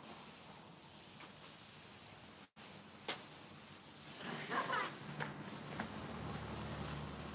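Steady hiss, cut off by a brief total dropout about two and a half seconds in, with a sharp click just after.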